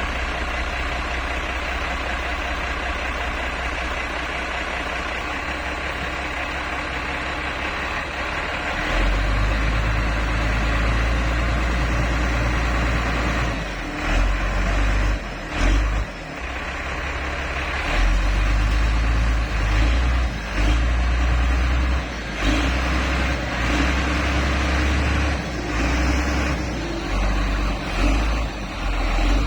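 Motor grader's diesel engine running, then from about nine seconds in working much harder, with a deep rumble that rises and dips unevenly as the machine struggles to free itself from soft ground.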